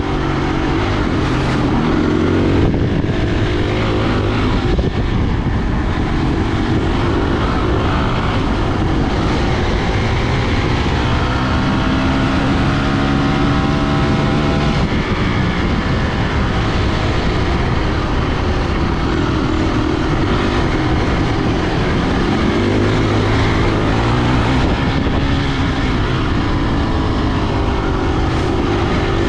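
Engine running steadily under load, its pitch drifting slowly up and down, with a constant rushing noise over it.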